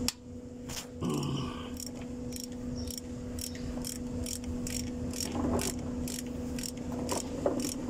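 Ratchet wrench clicking at an even pace, about two or three clicks a second, over a steady low hum.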